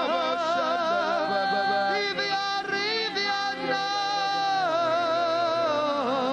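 Worshippers singing in tongues: several voices holding long, wavering notes that overlap, with no words or beat.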